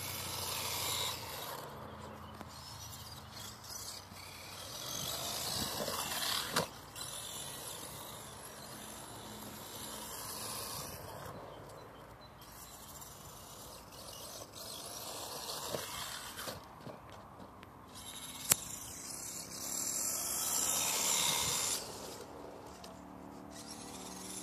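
Brushless-tuned LRP S10 Blast TX 4WD RC truck driving over grass in bursts, its motor and tyre noise swelling and fading again several times. A knock sounds about six seconds in, and a much sharper crack about eighteen seconds in.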